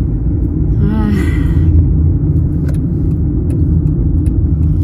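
Steady low road and engine rumble of a moving car heard from inside the cabin, with a brief voice sound about a second in.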